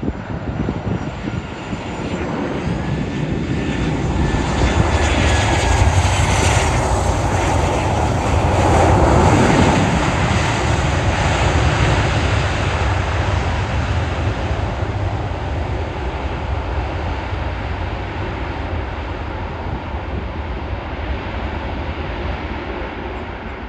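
Boeing 737-800's CFM56 turbofan jet engines on a landing. A high whine slides down in pitch as the airliner passes, the jet noise builds to its loudest about nine seconds in, then slowly fades.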